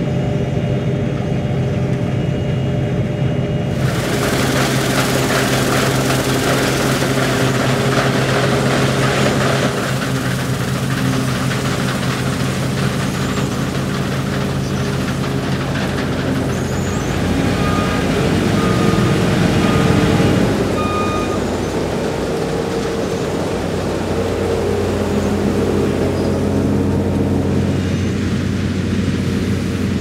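New Holland TC5.90 combine harvester running while harvesting barley: a steady engine drone under a broad mechanical rush. The rush grows louder and brighter about four seconds in.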